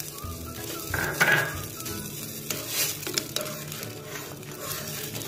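Khaman tempering water with oil, mustard seeds, curry leaves and green chillies bubbling at a boil in a steel pan while a spoon stirs it. The spoon clicks against the pan a few times midway.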